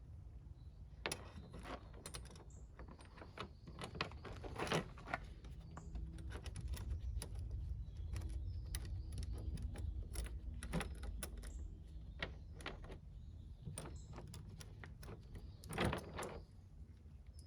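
Irregular clicks, knocks and rattles of hard objects being handled and set down, with a louder knock about five seconds in and another near the end, over a low steady hum.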